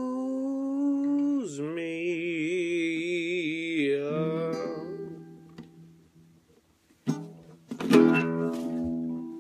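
A man's long held vocal note over an acoustic guitar, dropping in pitch and wavering about a second and a half in, then fading out around five seconds in while the guitar notes ring. About eight seconds in, a final strummed chord on the acoustic guitar rings out.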